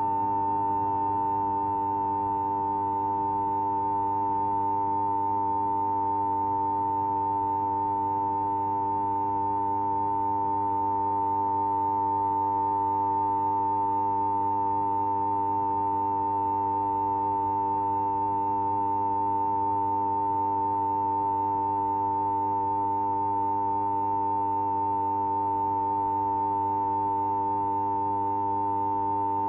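High-pitched humming sound effect: one loud steady tone with fainter lower tones beneath it, unbroken and unchanging.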